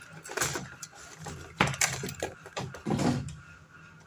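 Irregular handling noise: a few short rustles and light knocks as multimeter test probes and their leads are moved about over a circuit board, with the loudest cluster about a second and a half in.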